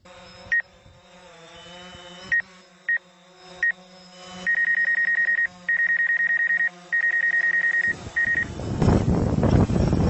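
DJI Phantom 4 Pro quadcopter hovering close with a low motor hum that wavers in pitch, under high electronic beeps: a few short beeps, then four long beeps of about a second each. About a second and a half before the end, a loud rush of propeller wash and wind takes over as the drone is hand-caught for a catch landing.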